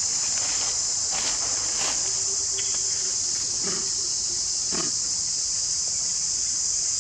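Steady high-pitched insect drone. A few brief, fainter sounds come over it about 1, 2, 4 and 5 seconds in.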